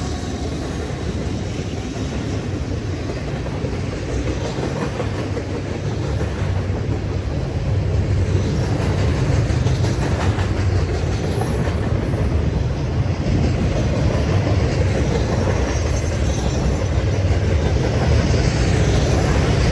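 A train rolling past at close range: a steady, loud noise of railroad cars' wheels running on the rails.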